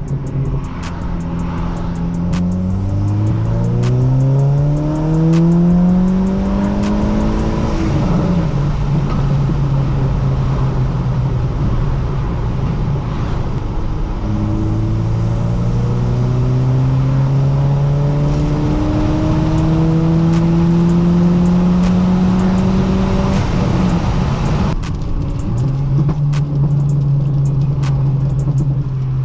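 Audi A4 2.0 TFSI turbocharged four-cylinder with a catless downpipe and AWE track exhaust, making two hard pulls. The engine note climbs steadily, then drops away on lift-off about eight seconds in and again about twenty-five seconds in, with a steady cruising drone between. Sharp pops and crackles come from the crackle tune.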